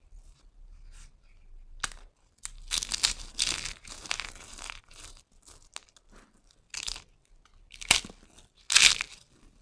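Dry, crunchy soap bar being crumbled and crushed by hand: crisp crackling and crunching as the brittle soap breaks into flakes. A single snap about two seconds in is followed by a dense spell of crackling, then several louder, separate crunches near the end.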